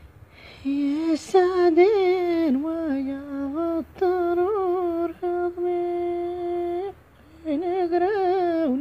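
A woman singing a wavering, ornamented melody without words heard, in phrases broken by short pauses about four seconds in and near the end, with one long held note.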